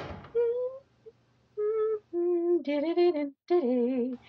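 A woman humming a slow, lullaby-like tune in a few held notes, with short pauses between phrases.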